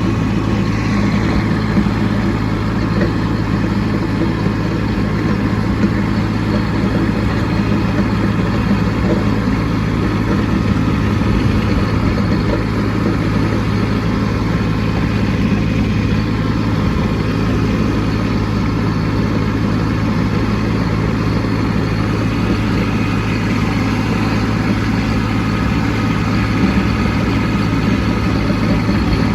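Kubota B2601 compact tractor's three-cylinder diesel engine running steadily while blading snow, running well on a freshly replaced fuel filter.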